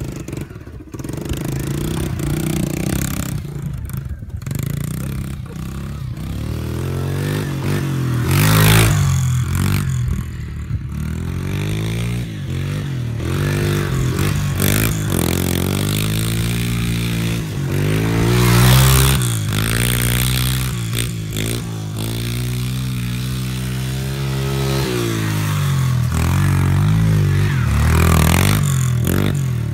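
Small four-stroke pit bike engine revving up and down over and over as it is ridden around a dirt track. It grows loud as the bike comes close, about a third and two-thirds of the way in and again near the end, and fades as it moves away.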